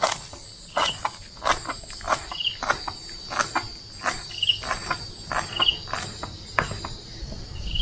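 Kitchen knife chopping soup celery leaves on a plastic cutting board: a steady run of knocks, about one and a half a second, some doubled. Crickets chirp steadily behind it.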